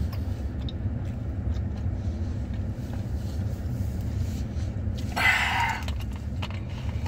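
Steady low rumble inside a stationary vehicle's cabin, typical of the engine idling. A brief, louder noisy sound comes about five seconds in.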